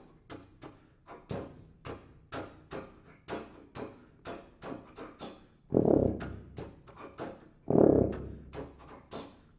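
Tuba playing two long, loud low notes, about six and eight seconds in, against a steady run of short, sharp percussive taps two to three a second.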